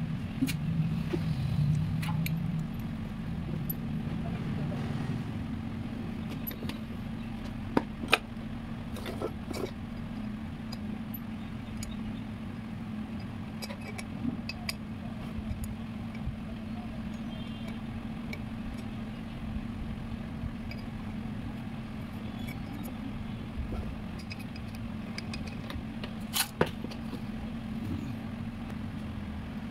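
Metal parts and hand tools clinking and knocking while a scooter engine's rocker and cylinder head are fitted, over a steady background hum; two sharper knocks stand out about 8 s in and again near 26 s.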